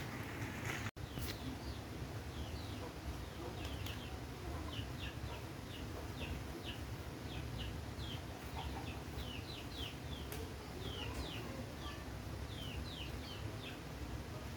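Small birds chirping, a run of short, high, falling chirps coming several a second, over a low steady rumble.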